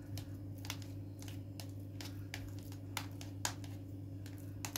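Metal spoon scraping and tapping inside a small bowl as potato salad is spooned in and pressed down: a series of light, irregular clicks over a steady low hum.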